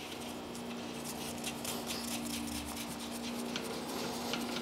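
Gloved hands spinning the top nut onto the shock absorber's piston rod above the compressed coil spring: faint rubbing with small scattered metallic ticks, over a steady low hum.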